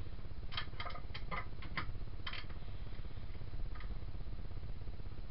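A quick run of small, sharp clicks and taps from hands working the collet of a plunge router while the cutting bit is loosened and removed, then one more faint click a little later.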